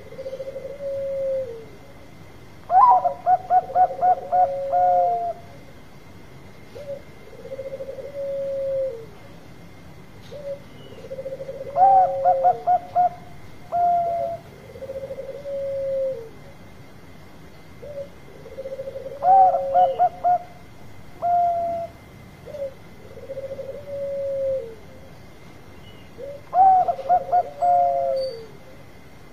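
Bangkok-strain zebra dove (perkutut) singing. It gives four song phrases, one about every seven or eight seconds, each a rapid run of short staccato coos ending in a longer note. Between them come softer, lower drawn-out coos that fall away at the end.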